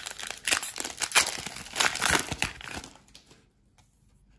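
Foil trading-card pack wrapper crinkling as it is handled and torn open, a busy crackle of many small strokes that dies away about three seconds in.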